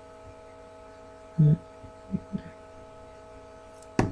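Handling noise from a handheld phone: a short low thump about a second and a half in, two softer knocks just after, and a sharp click near the end, over a steady hum with a few constant tones.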